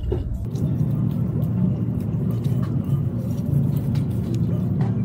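Steady low rumble of background noise, with a few faint clicks of plastic clothes hangers being pushed along a rack.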